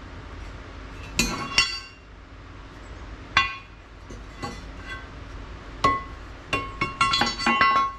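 Metal hardware of a Corvair front engine mount clinking and knocking as it is test-fitted with cut-down bushings: scattered sharp metal clanks with a short ring, coming thick and fast near the end.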